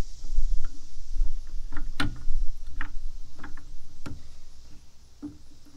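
Irregular metal clicks and knocks of a hex-key tool turning the bolts of Quick Fist clamps on a truck-bed rail, the sharpest about two seconds in, over a low rumble that fades in the second half.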